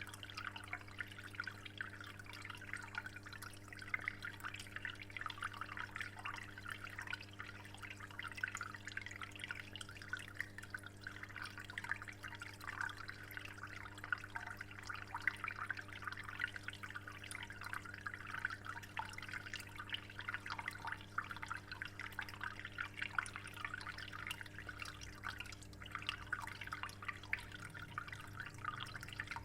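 Aquarium water steadily trickling and dripping, a continuous patter of small splashes, over a steady low hum.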